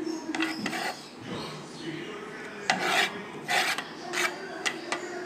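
Kitchen knife scraping and chopping on a plastic chopping board in several short, separate strokes, gathering and cutting soft chopped drumstick (moringa pod) flesh.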